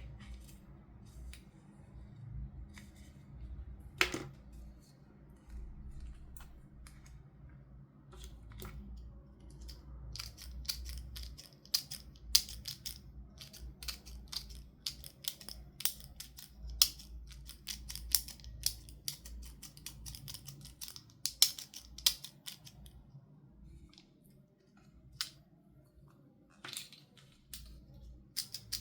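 Toy packaging and plastic pieces being handled close to the microphone: a series of sharp, irregular clicks and snips, sparse at first, then dense from about ten seconds in.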